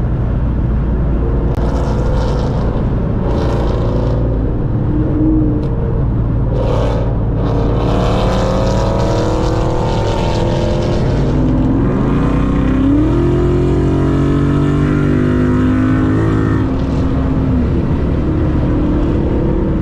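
Ford Mustang 5.0 Coyote V8 engines running loud and revving, with one engine's note rising as it accelerates about twelve seconds in.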